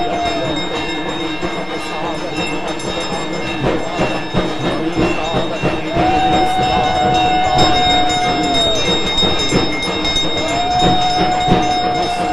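Conch shells blown in long steady blasts during the arati, each dropping in pitch as it stops. One blast ends just after the start, another runs from about six seconds in to nearly nine, and a third starts near the end. Underneath is a constant clatter of quick strikes.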